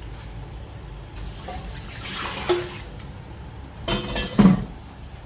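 Pot of water boiling on the stove for choy sum, with a rush of water about two seconds in and a sharp clatter of metal cookware, ringing briefly, about four seconds in.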